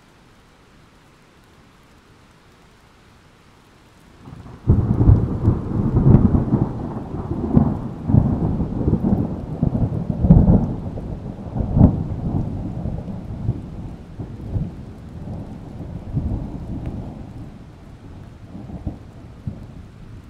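Rolling thunder over steady rain. A faint rain hiss, then about four and a half seconds in a loud low rumble breaks out and rolls on in several surges, slowly dying away toward the end.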